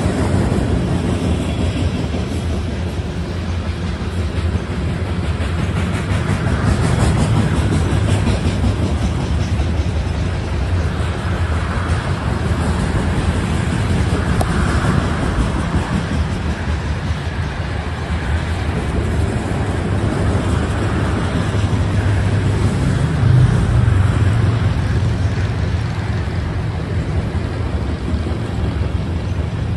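Covered hopper cars of a long freight train rolling past close by, a steady noise of steel wheels running on the rails.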